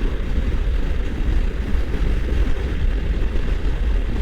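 Steady riding noise from a Moto Guzzi V85 motorcycle cruising along: an even rush of wind and a low rumble, unchanging throughout.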